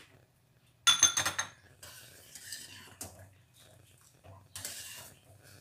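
A stainless steel ladle clinks and rings against a stainless steel pot in a quick cluster of strikes about a second in. It then stirs and scoops palm-sugar syrup with softer scrapes and clicks, a stage of checking that the sugar has dissolved.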